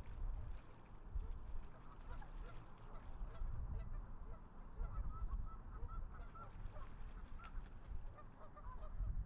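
Canada geese honking, many short faint calls overlapping, over a steady low rumble.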